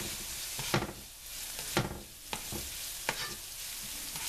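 Diced onions and garlic sweating in butter in a nonstick frying pan, giving a steady sizzle. A slotted spatula stirs them, scraping and tapping the pan several times.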